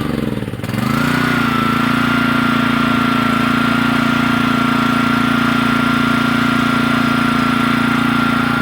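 Honda small engine on a Kärcher pressure washer running: within the first second its speed sags sharply and then picks back up, and it holds a steady pace with a high whine above the engine note. It runs only on choke, a sign the carburetor may be dirty or dried out.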